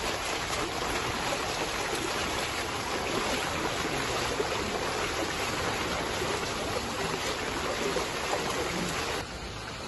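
Steady rushing hiss of rain and running floodwater, dropping away suddenly near the end.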